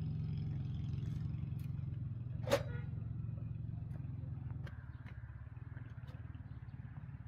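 An engine running steadily at a low idle. A single brief, sharp, loud sound comes about two and a half seconds in, and the engine sound drops in level about two-thirds of the way through.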